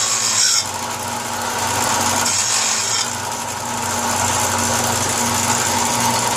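Power wire wheel running against a steel part: a steady motor hum under a harsh scratching hiss that swells and eases as the wire bristles are pressed on the metal to clean it.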